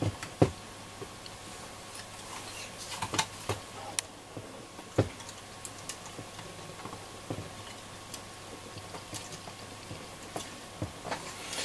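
Scattered small clicks and taps of fingers handling the Roberts R707 radio's plug-in circuit module, pressing it down and bending its wire leads against the board, the sharpest click about half a second in. A faint steady hum runs underneath.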